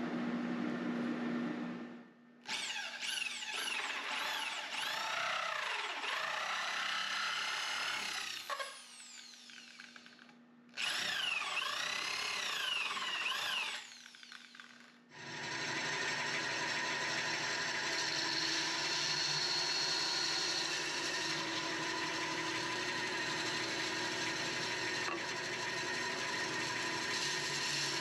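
Electric drill boring a hole through a plastic gutter corner piece, its motor speeding up and slowing down in two runs of several seconds. From about fifteen seconds in, a band saw runs steadily, cutting a notch in a plastic bulkhead fitting. A steady hum fills the first two seconds.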